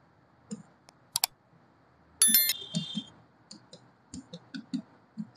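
Scattered light clicks and taps, with a brief bright electronic chime a little over two seconds in, followed by a series of soft low knocks.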